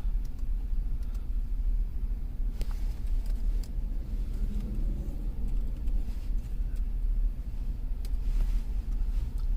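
Low, steady rumble of the Cadillac Escalade's 6.0 L V8 running, heard from inside the vehicle, with a few faint clicks.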